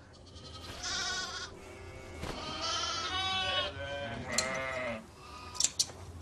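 Sheep bleating, three quavering calls, with a few sharp clicks of hand shears snipping wool near the end.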